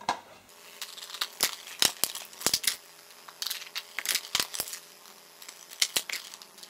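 Plastic DVD keep case and its wrapping being handled: a quick run of sharp clicks, crinkles and tearing sounds over a faint steady hum.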